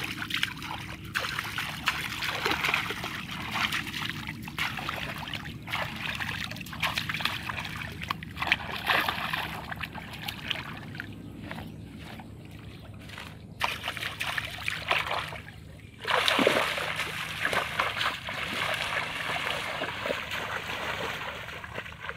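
Water splashing and sloshing as a person wades through shallow muddy water and gropes in it by hand, with many short irregular splashes. The splashing gets louder about two-thirds of the way through.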